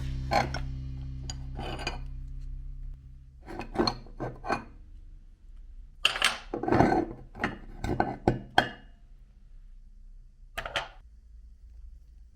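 A low steady hum that stops a few seconds in, then irregular clattering knocks and scrapes of hard kitchenware being handled, in a few short clusters.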